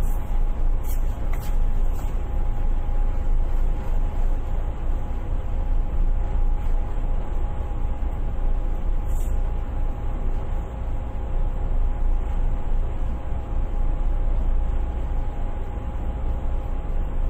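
Steady low rumble of a ship's engine running under way, with two faint constant tones held above it.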